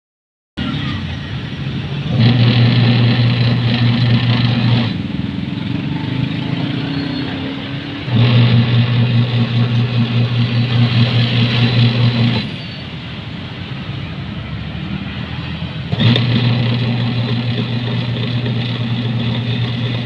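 Washing machine's electric motor driving the wash pulsator through a V-belt: it hums loudly in spells of about four seconds, three times, with quieter coasting stretches between, the on-off rhythm of the wash agitation.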